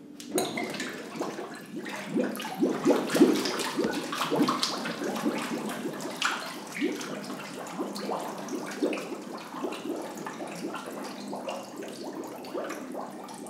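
Water sloshing and splashing in a stainless-steel hydrostatic weighing tank as a man goes fully under, with the bubbling of his breath as he exhales all his air for an underwater body-fat weighing. It is busiest and loudest a few seconds in, then settles to a lower, steady churning.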